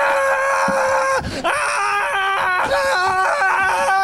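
A man's voice shrieking in a high falsetto: one long held shriek for about a second, then a rapid string of short yelping, warbling cries.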